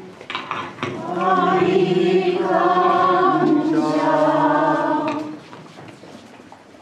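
Congregation singing a short chanted response together, lasting about four seconds and then stopping.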